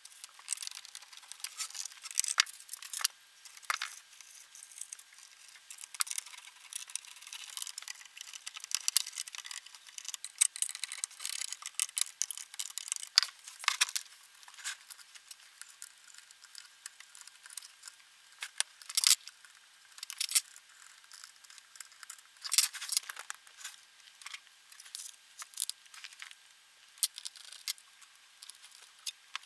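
Hands working on a Hagström 26 tube amplifier's metal chassis and wiring: irregular clicks, taps and light rattles, with a few sharper clicks standing out.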